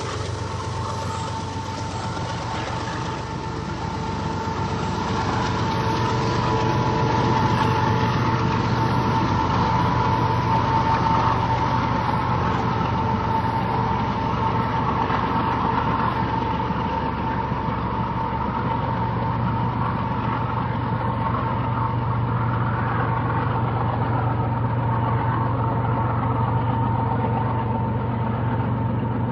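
BNSF diesel freight train running steadily: a constant engine hum under a steady high whine, with no horn or speech.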